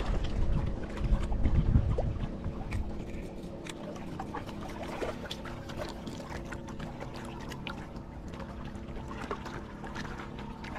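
Wind buffeting the microphone for about the first two seconds, then a quieter stretch with small scattered clicks and a faint steady hum.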